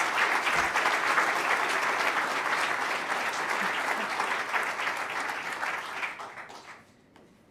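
An audience of many people applauding, a dense clapping that fades out near the end.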